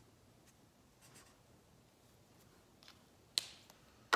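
Felt-tip marker faintly scratching across paper in a few short strokes as a name is written, then a sharp click a little after three seconds in and a knock at the very end.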